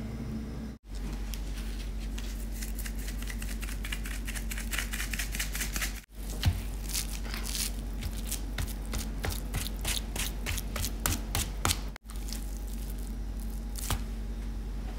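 Hands rubbing and patting dry rub into a raw bone-in pork butt on a cutting board: many quick crisp rustling and scraping strokes over a steady low hum, broken by brief silent cuts between short clips.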